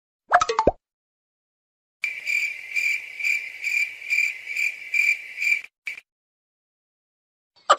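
A cricket chirping in a steady run of high pulses, about two a second, for nearly four seconds. A short burst of clicks comes just before it.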